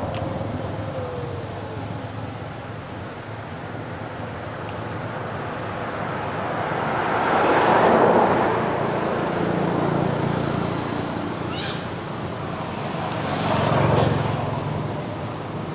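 Road traffic: two vehicles pass, the louder one about halfway through and another near the end, each swelling and fading over a couple of seconds.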